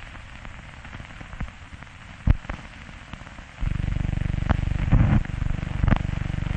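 Surface noise of an old film's optical soundtrack running out past the end of the film: a low hiss with scattered clicks and pops from dust and scratches, the sharpest a little over two seconds in. About three and a half seconds in, a steady low buzz starts and carries on under further pops.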